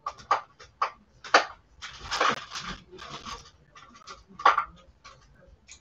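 Handling noise as things are rummaged through and moved about: irregular clicks and knocks with a rustling spell near the middle, and two sharper knocks about a second and a half and four and a half seconds in.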